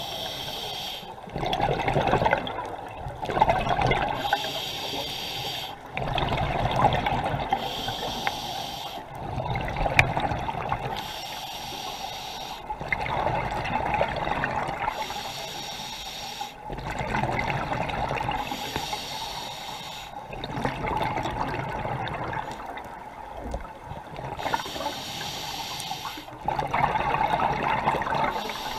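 Scuba diver breathing through an open-circuit regulator underwater: a hissing inhale, then a burbling rush of exhaled bubbles, repeating about every four seconds.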